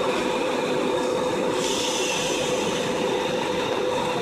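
Car driving, heard from inside the cabin: steady road and engine noise with a constant hum, and a hiss that grows brighter about a second and a half in.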